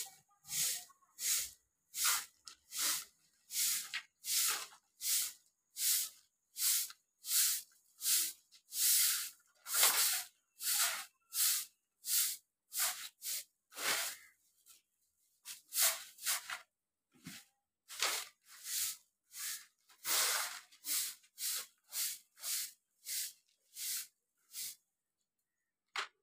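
A long-bristled grass broom sweeping a dusty hard floor: short swishing strokes, about one and a half a second, with a brief pause about halfway through.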